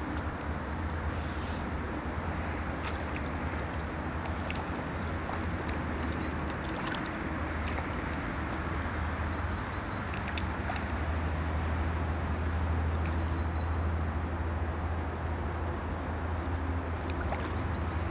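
Outdoor wind on the microphone: a steady low rumble under an even hiss, swelling slightly partway through, with a few faint clicks.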